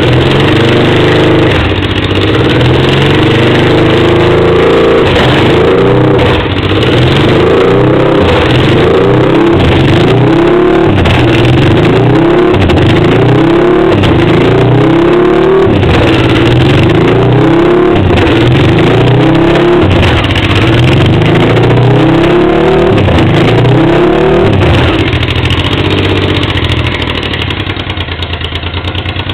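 Honda Africa Twin XRV 750's V-twin engine running without a silencer, revved in repeated short blips about every one and a half seconds, then dropping back to a steady idle near the end.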